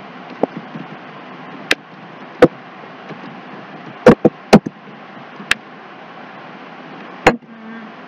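Computer keyboard keys being pressed one at a time: about eight sharp clicks spread unevenly, a few close together around the middle, over a steady hiss.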